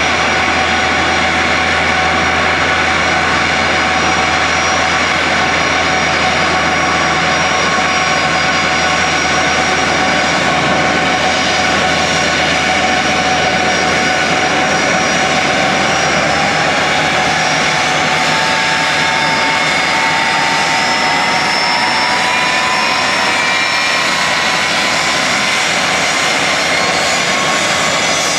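Ilyushin Il-76TD-90VD cargo jet's four PS-90A turbofans running at taxi power as it taxis and turns, a steady jet whine made of several pitches. Some of the whining tones slowly rise in pitch over the second half.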